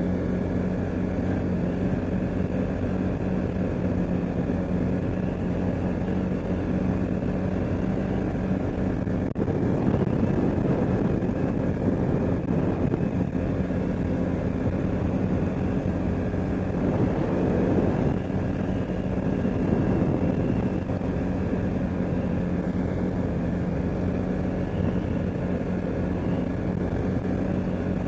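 CFmoto ATV engine running steadily, getting louder and rougher for a few seconds twice in the middle.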